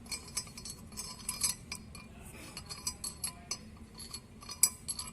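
Irregular metallic clinks and taps of bolts and a spanner or socket on a Tata BS4 truck's rear differential as the crown wheel bearing-cap bolts are fitted, with one sharper clink near the end.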